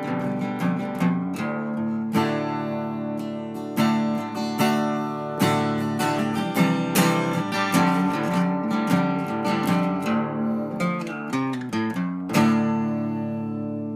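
Acoustic guitar music, picked notes and strummed chords, ending on a chord about twelve seconds in that rings and slowly fades.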